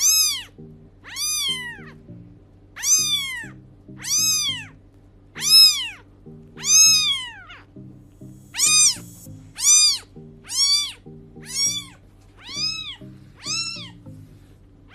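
Very young kitten mewing over and over, about thirteen high, thin mews roughly a second apart, each rising and then falling in pitch, with a short pause just before the middle. Background music plays underneath.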